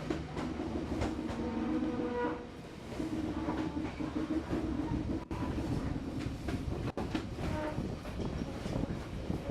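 Train running along the track, with a long held tone sounding twice in the first half. The sound briefly cuts out twice in the second half.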